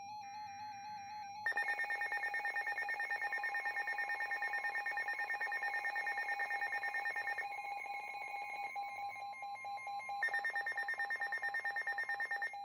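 Weather radio receiver sounding its warning alarm: a quieter warbling tone, then from about a second and a half in a loud, rapidly pulsing electronic beep over a steady high tone. This signals an incoming weather warning, here a severe thunderstorm warning.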